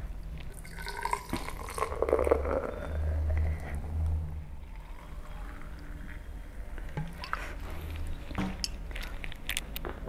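Carbonated cola poured from a plastic bottle into a glass, the glass filling for about four seconds.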